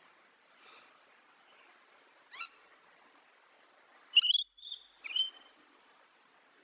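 Wild birds calling over a faint steady hiss: one short call about two seconds in, then three sharp calls in quick succession a little past the middle.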